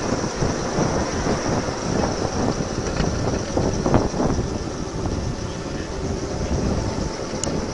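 Battery-electric 5-inch gauge model Sydney tram rolling along the track: a steady rumble of steel wheels on rail with scattered knocks, one louder knock about halfway through, and wind noise on the microphone.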